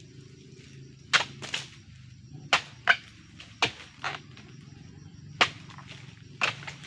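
Sharp chopping strikes of a blade, about nine in all at an irregular pace, some coming in quick pairs, over a steady low hum.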